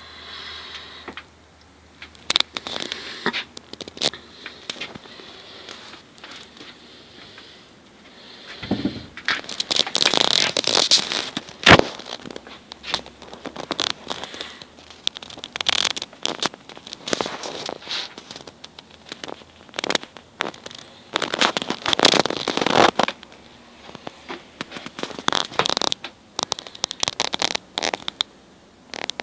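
Irregular rustling, scraping and sharp clicks of a handheld phone being handled and moved while filming, loudest in bursts around a third of the way in and again past two thirds.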